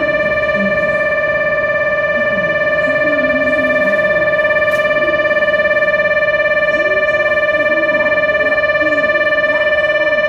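Platform departure bell sounding as one steady electronic tone at a single unchanging pitch, the signal that the train is about to leave. Faint voices are heard underneath.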